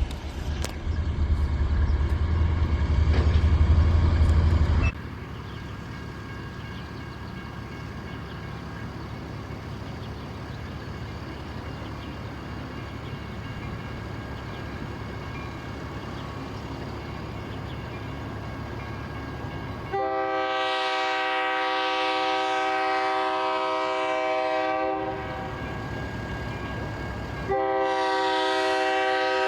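Diesel locomotive air horn sounding a long, steady blast about two-thirds of the way in, then a second blast starting near the end, over the steady rumble of a train. A loud low engine drone fills the first few seconds and cuts off suddenly.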